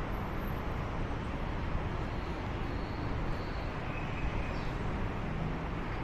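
Steady rumble of road traffic with outdoor ambience.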